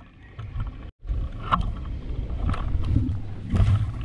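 Rustling and crackling of tall dry weeds as someone pushes through them, over a low rumble of wind on the microphone, with sharper crackles about one and a half, two and a half and three and a half seconds in. The sound cuts out completely for a moment about a second in.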